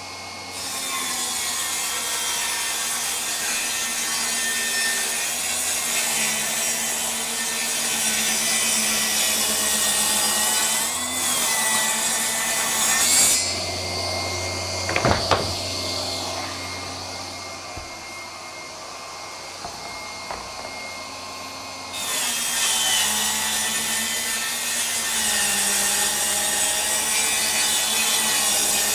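Milwaukee M18 FUEL 8-1/4-inch cordless table saw ripping long boards lengthwise. The cutting stops for several seconds around the middle while the saw runs free, with a couple of sharp knocks, and then the cutting starts again.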